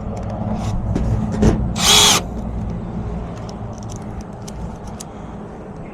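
Cordless drill/driver driving a screw into an HVAC unit's sheet-metal access panel in one short whining burst about two seconds in, over a steady low rumble.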